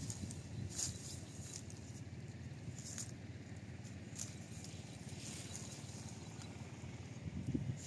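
Leaves and twigs of a tangerine tree rustling in short brushes as a hand parts the branches, over a low steady rumble.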